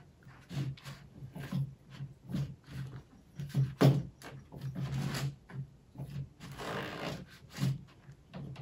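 Hands kneading and squishing a cornstarch-and-Jell-O putty in a bowl: irregular squelches and rubbing, with a longer rustling spell about seven seconds in.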